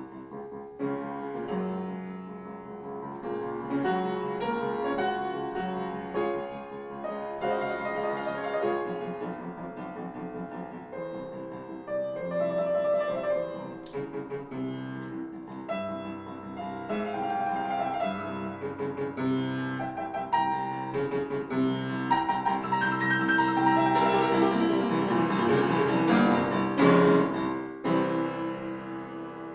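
Solo piano music in a classical style, a steady run of notes that swells a little toward the end.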